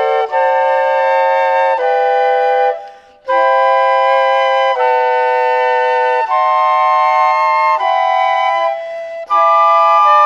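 Flute quartet playing sustained chords in an ensemble exercise, the parts moving together to a new chord every second or so. The music breaks off briefly about three seconds in and again just after nine seconds, as for a breath, then resumes.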